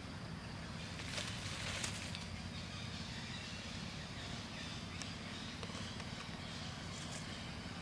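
Rustling in dry forest leaf litter about a second in, with a few faint clicks later, over a steady low background hum.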